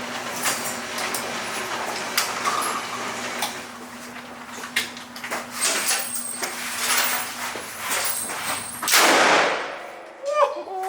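Knocks and clacks at a shooting range, over a steady low hum. A loud burst comes about nine seconds in.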